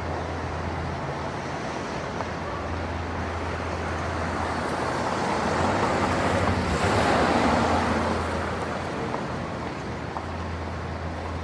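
City ambience of light traffic: a steady low rumble, with a vehicle passing that swells up and fades away in the middle.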